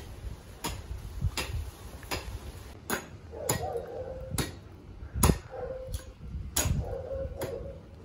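Steady, evenly spaced sharp ticks, about four every three seconds, like a clock or metronome, with a faint steady tone joining in about halfway through.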